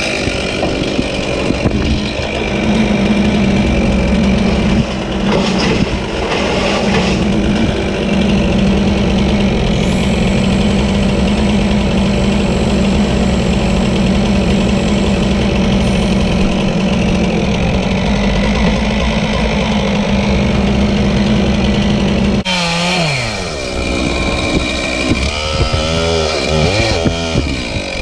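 Two-stroke chainsaw running at a steady high speed, then let off about 22 seconds in, its pitch dropping, followed by a few revs up and down near the end.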